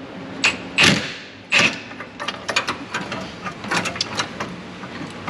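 Sharp metal knocks under a truck where the fuel tank strap bolts are being worked with an impact wrench: three loud strikes in the first two seconds, the second loudest, then lighter irregular clicking and tapping.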